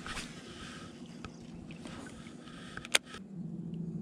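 Handling noise of an angler moving in a fishing kayak: rustling, then one sharp click about three seconds in. A steady low hum follows the click.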